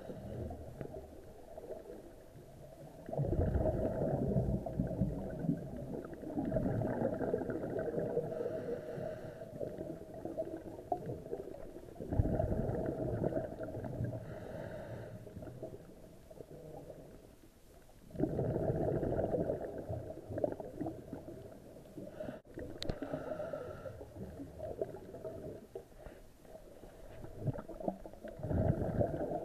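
A diver's scuba breathing picked up by an underwater camera: long spells of low rumbling, gurgling exhaled bubbles, starting about three, twelve, eighteen and twenty-eight seconds in, with quieter breaths between.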